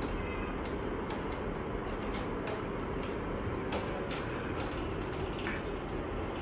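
Light, irregular clicks and taps of cats' claws gripping and scrambling on a metal window grille, over a steady low background rumble.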